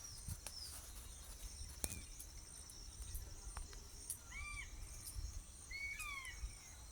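Birds calling in the open with a few short arched and down-slurred whistled notes, over a steady high-pitched insect drone and a low rumble.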